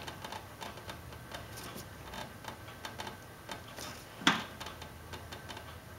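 Faint, irregular clicks and small knocks of hands working a fuel line and its clamp off the fuel filter of a Cub Cadet LT1050 riding mower, with one louder knock about four seconds in.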